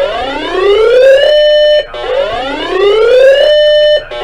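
Electronic whooping alarm tone. Each whoop's pitch rises for about a second and a half, holds briefly and cuts off, repeating about every two seconds: two full whoops, then a third begins near the end.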